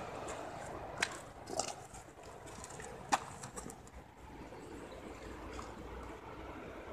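Faint outdoor background with a few short sharp clicks, about one, one and a half and three seconds in, the last the loudest.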